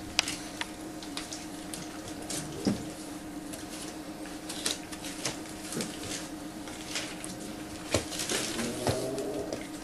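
Puppies scuffling as they wrestle, their paws and claws scrabbling and knocking on a plastic sheet and newspaper in irregular clicks and taps, with a short puppy whine near the end.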